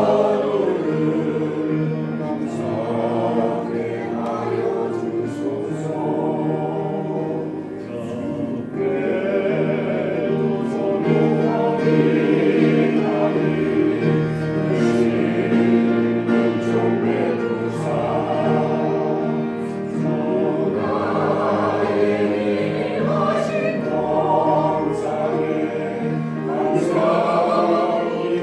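Choir singing a Korean Christian song, many voices holding long notes in harmony, with a short breath-like lull about a third of the way in.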